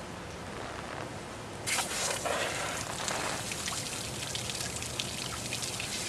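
Pressurized water spraying and spattering from a quarter-inch hole drilled in a live water pipe. The spray turns louder and coarser a little under two seconds in.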